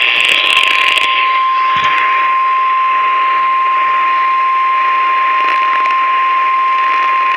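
NOAA Weather Radio's 1050 Hz warning alarm tone, one steady loud beep over radio static, cutting off sharply at the end. It signals that a warning message is about to be broadcast.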